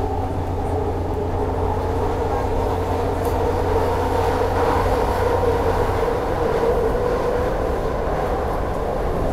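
Passenger train running, heard from inside the car: a steady rumble with a humming drone.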